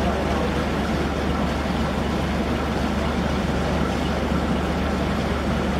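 Boat engine running steadily, a constant low hum under a wash of water and wind noise.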